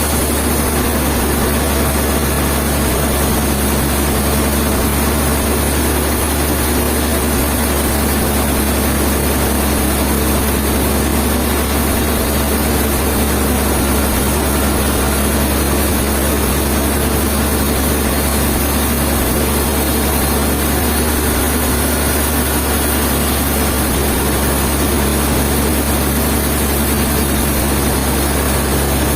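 A heavy engine running steadily at a constant speed, a continuous low hum with no revving.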